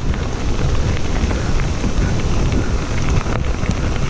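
Wind rushing over the microphone and mountain bike tyres rolling over a gravel trail, a steady noise with a few faint ticks of gravel.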